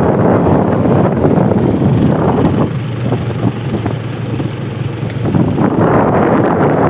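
A boat's engine running steadily under way, with wind buffeting the microphone; it eases a little in the middle and picks up again near the end.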